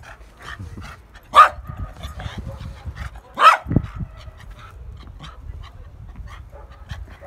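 Dog barking: two sharp, loud barks about two seconds apart, with softer small noises between them.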